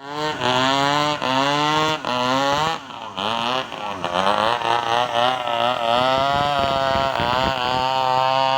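Engine running, its pitch holding steady in short stretches, then dipping and rising several times as it is throttled, then settling back to a steady pitch near the end.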